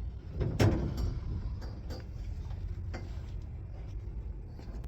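A sharp knock about half a second in, then a few softer clicks, over a steady low rumble.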